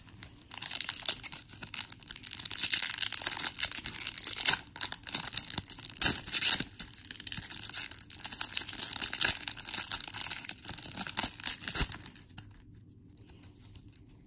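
Foil wrapper of a Pokémon HeartGold SoulSilver booster pack being torn open and crinkled, a crackly rustling full of small sharp clicks that stops about twelve seconds in.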